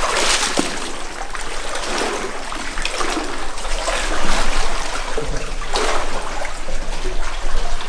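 Several people wading through deep water, the water sloshing and splashing around their legs in uneven surges with each stride.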